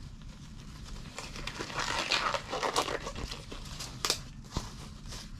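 Work gloves being pulled onto the hands, rustling and crinkling, with a couple of sharp snaps or clicks near the end.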